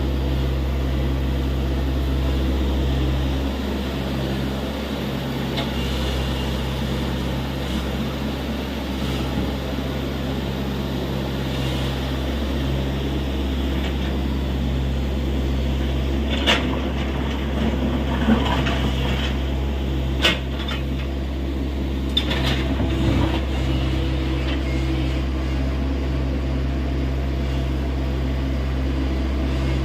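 TATA Hitachi EX70 excavator's diesel engine running steadily under load while digging. A few sharp knocks stand out in the middle.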